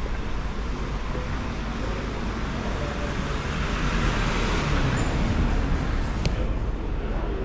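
Street traffic noise, with a vehicle going by that swells loudest around the middle, and a single sharp click about six seconds in.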